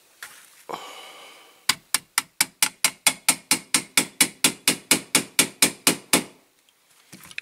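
A small hammer tapping rapidly and evenly, about five sharp blows a second for some four seconds, driving a tight pin into a diecast toy truck.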